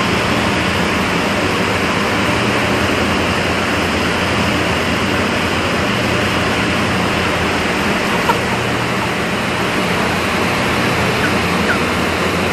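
Steady loud roar of industrial machinery with a low hum underneath, and a few faint, short, high chirps from broiler chickens packed in transport crates in the second half. A single light knock about eight seconds in.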